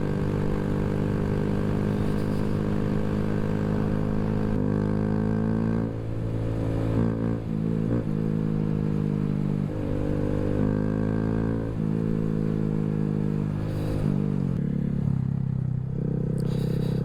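2023 Honda Grom's small single-cylinder engine running under way, its note holding steady and then stepping up and down several times as the throttle and gears change.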